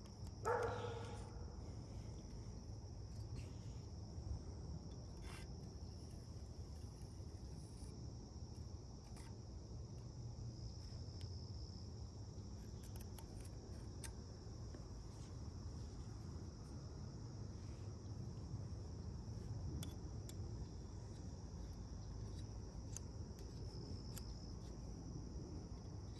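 Steady high chirring of insects, such as crickets, over a low background rumble, with scattered faint clicks of metal parts being handled.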